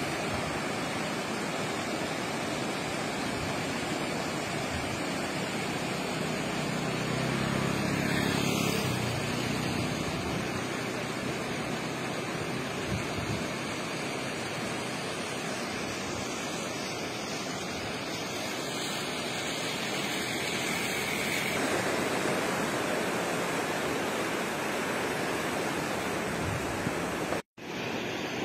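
Fast-flowing floodwater of the swollen Trishuli River rushing steadily below a bridge, an even, unbroken water noise. It cuts out for an instant near the end.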